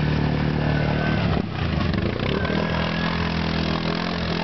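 Quad bike (ATV) engine running steadily while stuck half-submerged in deep water, kept on the throttle so it won't stall, with water churning around it. The engine note briefly dips and wavers about a second and a half in, then steadies.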